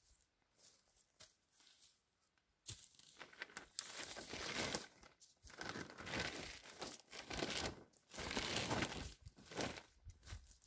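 Heavy plastic drum liner bag crinkling and rustling as it is pulled and slid along wooden poles, in repeated surges that begin about three seconds in.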